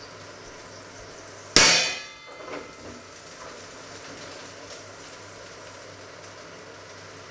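A metal kitchen utensil or pot strikes hard once, a loud clang that rings and dies away within about half a second, followed by a smaller clatter.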